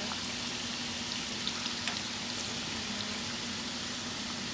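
Fries cooking in hot oil: a steady sizzling hiss with scattered small crackles.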